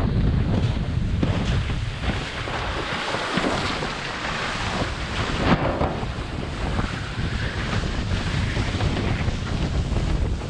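Strong wind buffeting the microphone over the rushing hiss of a windsurf board planing across choppy water. The low rumble of the wind drops away briefly about three seconds in.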